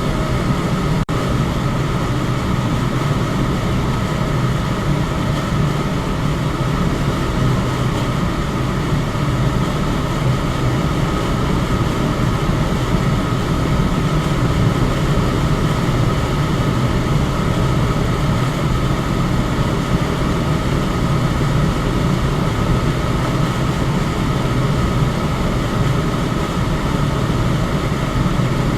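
Electric fan running steadily: a constant airy hum, heaviest in the low range, with a faint steady whine above it and a momentary dip about a second in.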